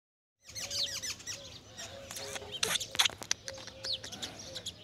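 Small birds chirping busily, many quick falling chirps overlapping, with two sharp clicks a little past the middle.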